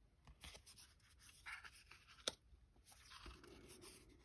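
Faint rustling and sliding of thick tarot cards being handled as the front card is moved off the deck, with one small sharp click a little over two seconds in.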